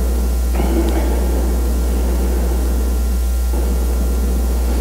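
Steady low electrical hum with a constant hiss underneath, from the sound system or recording chain; no speech.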